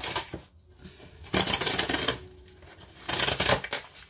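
Cardboard shipping box being handled and opened: a click, then two loud bursts of rustling and scraping cardboard, one about a second and a half in and one near three seconds.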